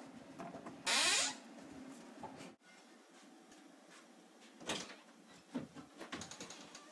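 A short loud noise about a second in, then a room door shut with a single knock, followed by a wooden wardrobe door opening with a few light clicks.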